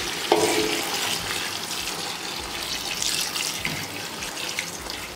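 Hot water poured in a steady stream into a large metal pot of steaming, browned mutton, splashing over the meat, with a sharp louder splash just after it begins. The water is added so the mutton cooks through faster.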